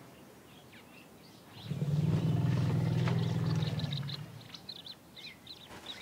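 African elephant giving one low rumble, lasting about two and a half seconds from about a second and a half in. Small birds chirp faintly in the background.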